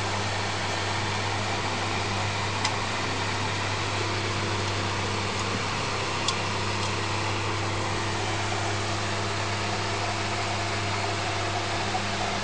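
Small electric desk fan running steadily: a low motor hum under the rush of air. A couple of light ticks come as a kitten's paw touches the fan's front grille.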